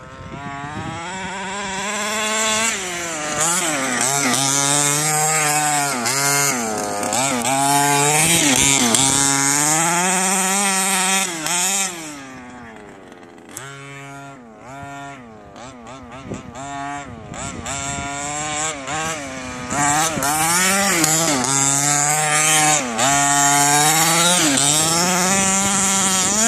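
HPI Baja 5B quarter-scale RC buggy's small two-stroke petrol engine revving up and down over and over as it is driven hard. It grows fainter for several seconds midway.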